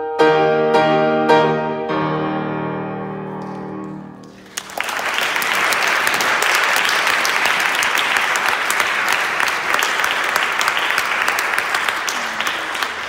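Grand piano ending a piece with a few loud chords that ring out and die away over about four seconds. Then the audience applauds.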